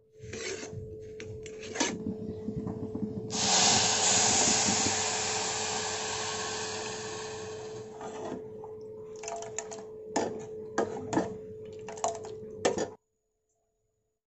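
A metal spoon scraping and stirring dry oats in an aluminium pot on the stove. About three seconds in, water goes into the hot pot with a loud hiss that slowly dies away. The spoon then clinks and scrapes against the pot as the oats are stirred in the liquid, over a steady faint hum, until the sound cuts off suddenly near the end.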